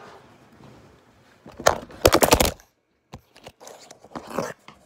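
Handling noise from the camera being grabbed and moved close to its microphone: a sharp knock about one and a half seconds in, then a quick cluster of loud knocks and clatter, followed by scattered light clicks and rubbing.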